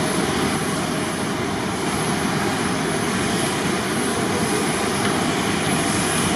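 Jet airliner engines running, a steady loud noise with a faint high whine on top.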